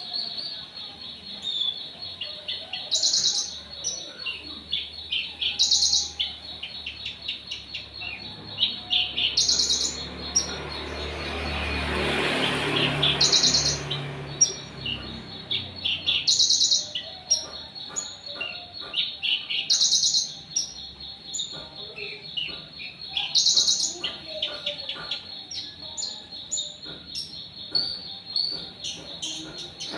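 Birds chirping, with one bird repeating a short, rapid high trill about every three to four seconds and many small chirps between. A steady high tone runs underneath, and a whooshing noise swells and fades around the middle.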